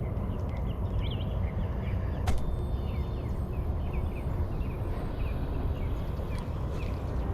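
Small birds chirping in quick short notes over a steady low rumble of outdoor background noise, with one sharp click a little over two seconds in.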